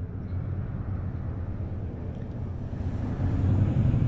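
Wind buffeting the microphone: a steady low rumble that grows louder about three seconds in.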